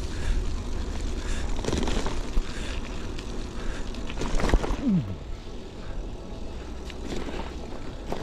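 Wind rumbling on a bike-mounted action camera's microphone while riding, with a motor vehicle going past; its engine pitch drops steeply about five seconds in.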